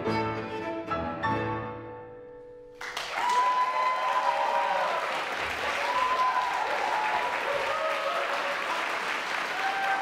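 Cello and piano hold their final notes, which die away. About three seconds in, the audience breaks into applause with cheers.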